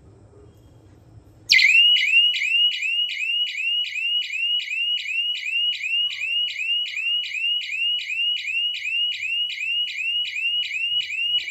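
Small horn speaker of a DIY LPG gas-leak detector circuit sounding its alarm, set off by gas from the stove burner. It starts suddenly about a second and a half in: a loud, high electronic tone that sweeps upward and repeats rapidly, about three to four times a second.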